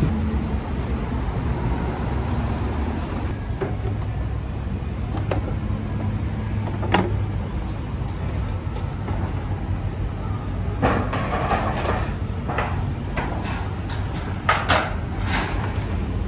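Steady low rumble of street traffic. A sharp knock comes about seven seconds in, and a run of clattering knocks follows in the second half.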